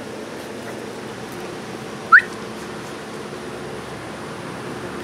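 A Labrador Retriever puppy gives one short, high-pitched yelp that rises in pitch, about two seconds in, over a steady low background hum.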